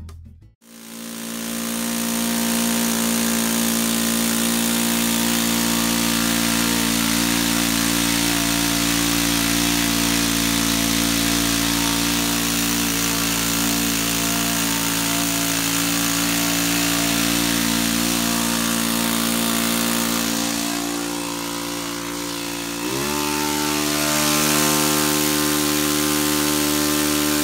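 Saito FA-62 four-stroke glow engine running steadily at half throttle with its needles freshly set. About 23 seconds in it is opened to full throttle: the pitch climbs quickly and then holds steady at the higher speed.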